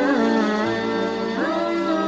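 Background music: a sung melody with gliding, ornamented notes over a steady held drone.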